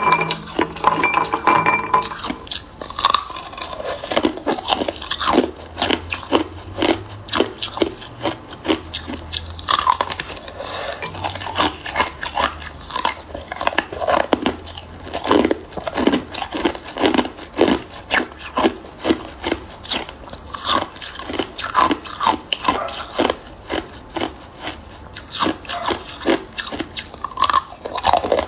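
Ice cubes clinking and rattling against a ceramic bowl for the first couple of seconds, then hard ice being bitten and chewed: a steady run of sharp, loud crunches, two or three a second.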